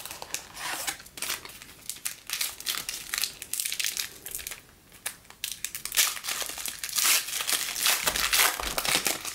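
Wrapper of a 2015 Panini Diamond Kings baseball card pack crinkling and crackling in the hands as it is pulled from the box and torn open.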